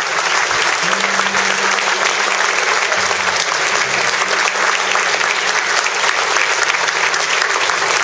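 Large audience in a hall applauding steadily: dense, continuous clapping.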